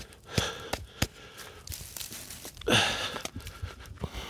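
Work boot being knocked and shaken out to empty debris: scattered light knocks and rustling, with one louder rush of noise about three seconds in.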